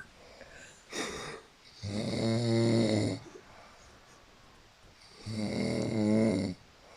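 Snoring: two long, pitched snores about three seconds apart, with a brief breath sound about a second in.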